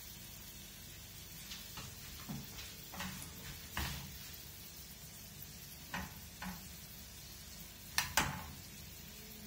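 Butter with onions and garlic sizzling gently in a stainless steel frying pan, with scattered small knocks and clicks of the pan and utensils. The loudest are two sharp knocks close together about eight seconds in, as the pan is moved on the gas burner grate.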